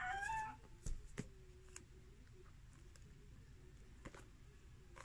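A few soft clicks and taps from paperback manga volumes being handled and their pages flipped. The last of a rooster's crow ends about half a second in.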